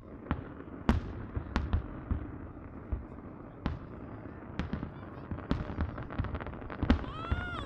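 Aerial fireworks shells bursting: a series of sharp bangs at irregular intervals, with a quicker run of pops about five to seven seconds in.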